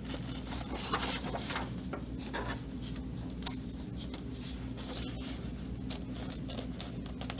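Short scratchy strokes on paper, a dozen or so irregular ones, from working a piece of construction paper by hand, over a steady low hum.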